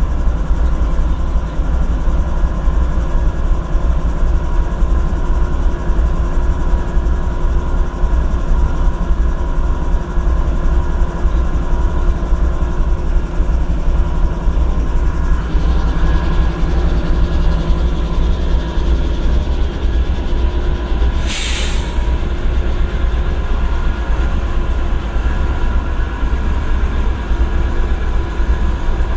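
GE ES40DC diesel-electric locomotive, its 12-cylinder GEVO engine idling with a steady, deep low rumble. A brief burst of hiss comes about twenty-one seconds in.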